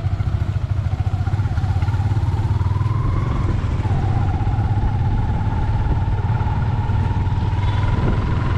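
Motorcycle engine running under way, its pitch climbing during the first three seconds, dropping about four seconds in, then slowly rising again.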